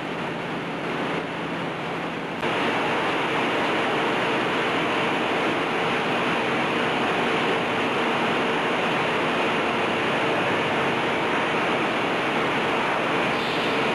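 Industrial press-line machinery running in a factory hall: a steady wash of machine and air noise with a steady hum. It gets louder about two and a half seconds in.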